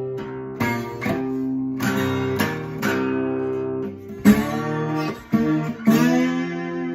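Twelve-string Takamine acoustic guitar tuned to open C, played with a slide as a blues riff. Plucked and strummed chords ring on, and about two-thirds of the way through the slide glides up into pitch.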